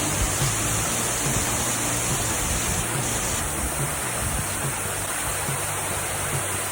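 Marymere Falls, a waterfall about 90 feet tall, giving a steady, unbroken rush of falling water.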